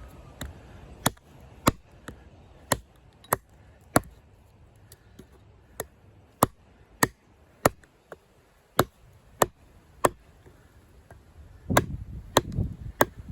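Condor Heavy Duty Kukri's thick 1075 carbon-steel blade chopping into a log on a chopping block: a steady run of sharp chops, about three every two seconds. The blade bites into the wood instead of bouncing off. Near the end, low knocking and rustling joins the chops.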